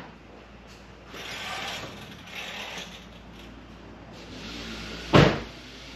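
A metal jack stand being pushed into place under a jacked-up car, with scraping along the floor, then one loud thump as it is set down about five seconds in.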